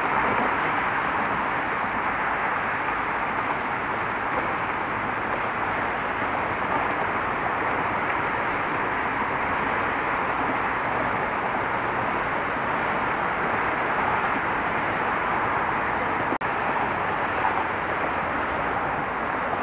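Steady road traffic noise, an even wash of tyres and engines from a stream of passing cars, with a brief dropout about sixteen seconds in.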